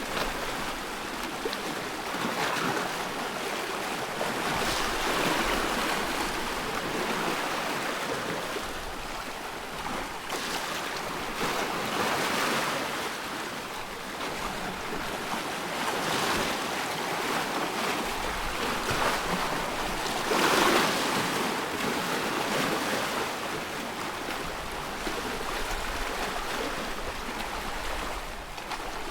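Small waves on a loch lapping and washing, swelling every few seconds over a steady rush of wind.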